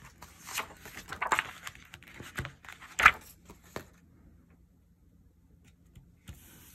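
Sticker sheet and a thin plastic sheet crinkling and rustling as a sticker is peeled off with tweezers, in a run of short crackles, loudest about three seconds in, that stops about four seconds in.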